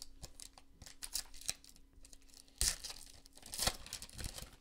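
A foil pack of Select basketball cards torn open by hand. The wrapper crinkles and crackles in a run of short, irregular rips, with the two loudest tears a little past halfway and about three-quarters of the way through.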